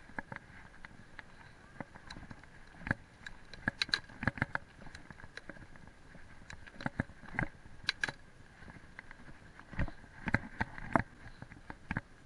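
Mountain bike rattling and knocking irregularly as it rolls over a rough gravel and grass trail, with louder clusters of knocks about three to four seconds in, around seven to eight seconds, and near ten to eleven seconds.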